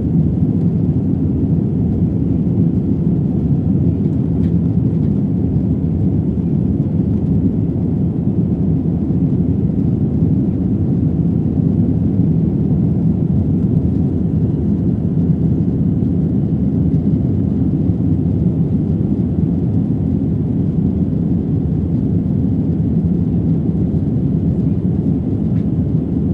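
Steady, deep rumble of a jet airliner's engines and rushing airflow, heard from inside the cabin during the climb after takeoff.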